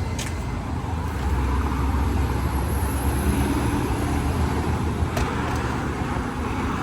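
Steady low rumble of passing road traffic, with a couple of faint clicks as a new key is tried in a door lock cylinder, one just after the start and one about five seconds in.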